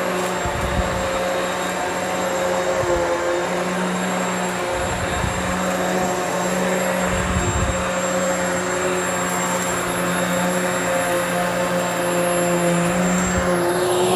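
Hoover Elite Swivel XL Pet upright vacuum cleaner running steadily, its motor drone holding one pitch with a thin high whine over it. A few dull low bumps come in among it.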